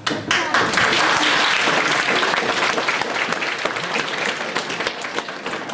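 Audience applauding. It breaks out all at once and then slowly dies down.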